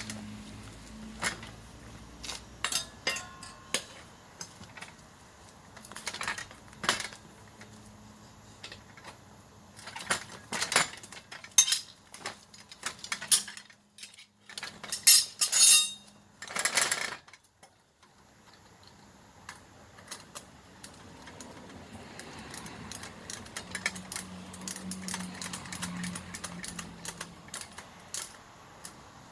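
Metal hand tools clinking and clacking in scattered, irregular knocks, with a denser run of louder clanks around the middle, as work goes on at a motorcycle wheel and tyre.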